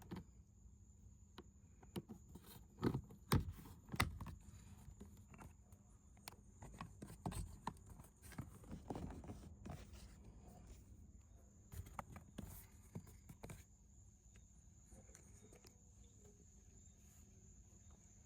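Scattered plastic clicks and knocks of a car door's window switch panel being handled, lined up and pressed back into its clips, loudest about three to four seconds in.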